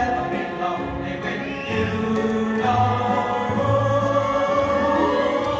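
Choral music: a choir singing long held notes over low sustained bass, the chords shifting about once a second.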